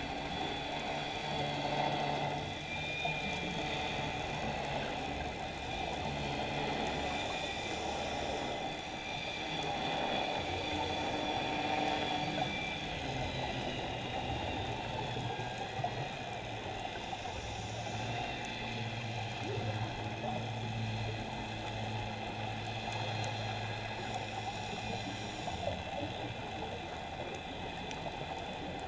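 Underwater ambience picked up through a camera housing: a steady watery hiss and hum with drifting tones. Three short hissy surges come from scuba regulator breathing.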